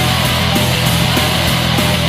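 Background rock music with distorted electric guitar and a steady beat, played loud.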